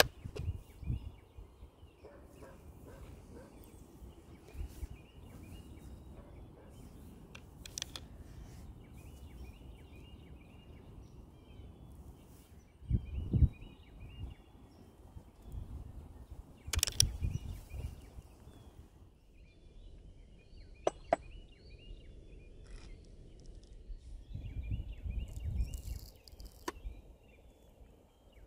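Hand handling of a .54 calibre Greene twist-barrel rifle: a few sharp metallic clicks as the barrel is turned and slid to open and close the breech, with low handling rumbles between them. Faint birdsong chirps repeat in the background.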